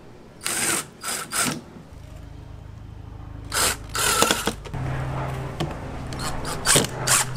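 Ryobi cordless drill driving a bolt through a plastic milk crate into a PVC pipe rod holder: the motor runs steadily from about two seconds in, its pitch stepping up partway through. Sharp clatter of the plastic crate and pipe being handled comes in short bursts before and during the run.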